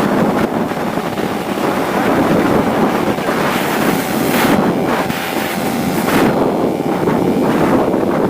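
Wind rushing over the microphone of a moving Yamaha RX King 135 two-stroke motorcycle, the engine running under the wind noise, with stronger gusts about halfway through.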